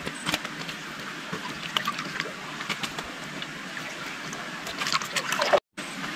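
Muddy pond water sloshing and trickling around people wading chest-deep, with small drips and splashes. The sound cuts out for a moment near the end.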